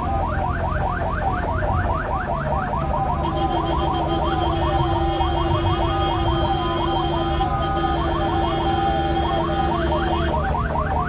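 Ambulance electronic siren on a fast yelp, about six rising sweeps a second, heard from inside the cab over the low rumble of the moving vehicle. From about three seconds in until near the end a steady, lower tone sounds alongside it, broken once briefly.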